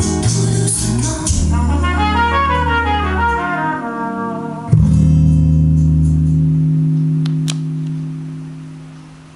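Recorded music played through Wharfedale Diamond 9.5 floorstanding speakers and an SW-150 subwoofer, picked up by a camera microphone: a run of notes falling in pitch, then a sudden final chord about halfway through, held over heavy bass and fading away near the end.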